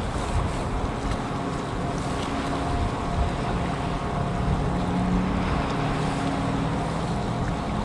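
The Ro-Ro passenger ferry Shirahama Maru's engines running as it manoeuvres into port: a steady low hum with a few held tones that grow stronger about halfway through, over a wash of wind and water noise.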